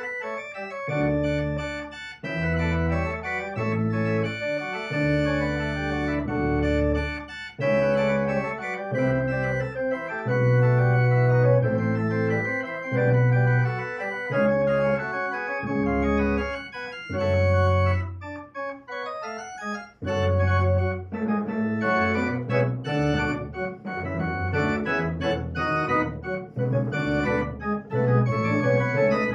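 Three-manual electronic organ played with hands and pedals: a Baroque-style contrapuntal arrangement of a pop song, full chords over deep pedal bass notes that change about once a second.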